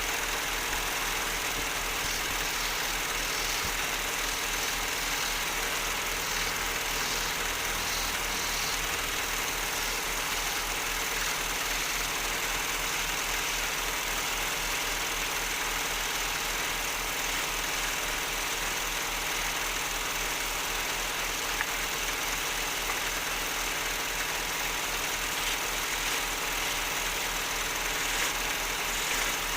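Wood lathe running steadily, a constant motor hum under a continuous hiss.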